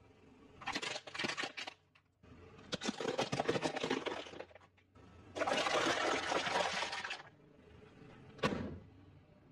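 A car tyre rolling over and crushing objects: several bursts of crackling and crunching, a longer dense hissing crunch in the middle, and one sharp pop near the end.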